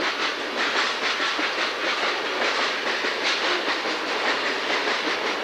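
Covered hopper cars of a freight train rolling past, their steel wheels making a steady clatter on the rails with many quick repeated clicks.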